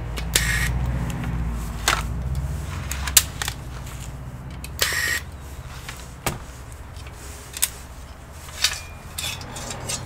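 Corded electric screwdriver whirring for the first few seconds as it backs screws out of a metal hard-drive caddy, with sharp metallic clicks and clinks from the caddy and screws being handled throughout.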